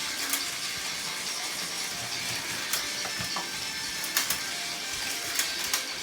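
Battery-powered Plarail toy trains running on plastic track: a steady whirring rattle from the small motors and gears, with scattered sharp clicks and knocks.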